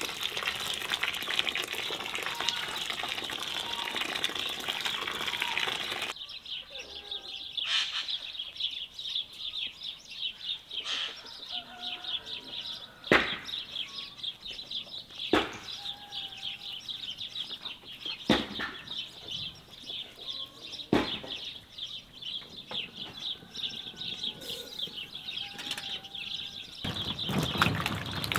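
Water pouring from a hose or tap onto apples in a metal basin for about six seconds. Then birds chirping and hens clucking, with a few sharp knocks. Near the end, water sloshing as apples are handled in the basin.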